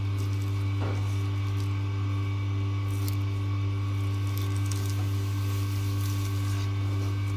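A steady low hum, with a few faint soft strokes of a knife slicing through a zander (pikeperch) fillet.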